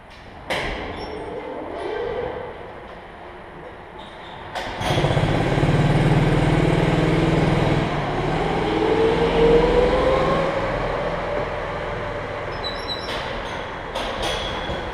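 Rental go-kart engines running in a queue. About five seconds in, a louder low engine rumble starts suddenly, and an engine revs up in a rising whine a few seconds later.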